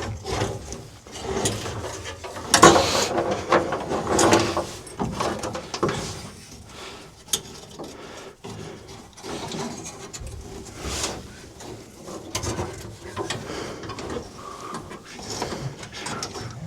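Irregular rustling, clicks and knocks of a car wiring harness being handled and worked into place along the base of a dashboard.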